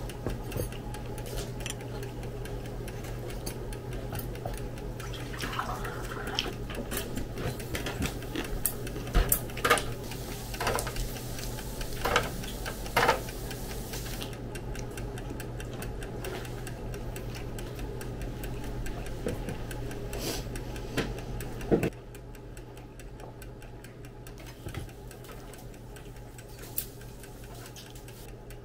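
A wall clock ticking steadily over a low hum, with scattered sharper clicks and taps in the middle.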